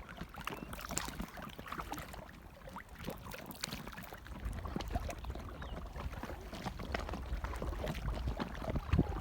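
Kayak paddles dipping and splashing in lake water from an inflatable kayak, with irregular small splashes and drips throughout. A low rumble comes in about halfway through.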